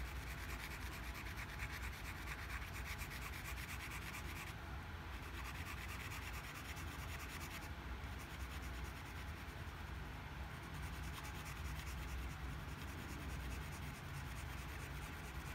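Tip of a paint marker scrubbing rapidly back and forth on a rough-surfaced stone: a steady scratchy rubbing of quick short strokes.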